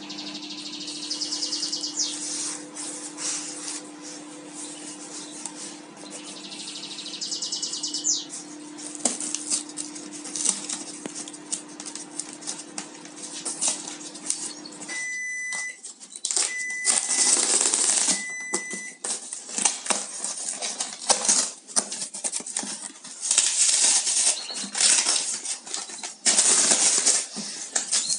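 Brown packing tape being peeled and ripped off a cardboard box, in repeated tearing bursts, with the cardboard flaps rustling and crackling as the box is pulled open. A low steady hum runs under the first half.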